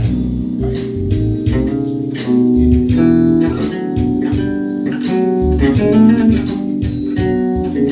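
Electric bass guitar being played: a continuous run of plucked notes, the pitch changing note by note over strong low tones.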